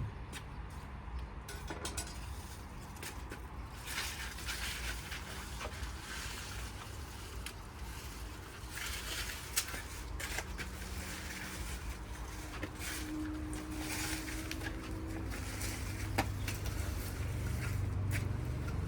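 Corn leaves and stalks rustling in repeated bursts, with a sharp snap about halfway through and another near the end, over a steady low rumble of wind on the microphone.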